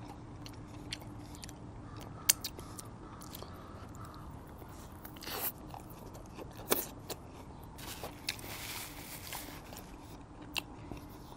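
Close-miked chewing of a Nashville hot chicken sandwich: soft mouth clicks and smacks with a few louder crunches, the loudest about five and a half and seven seconds in.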